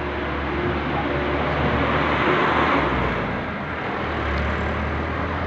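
A motorcycle passing on the road below, its engine swelling to a peak about halfway through and then fading.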